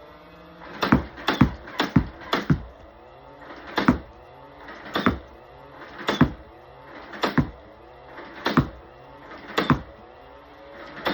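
Nerf Mega Mastodon blaster firing mega darts: a series of sharp shots, several in quick succession about a second in, then roughly one a second. A faint rising whine sounds between the shots.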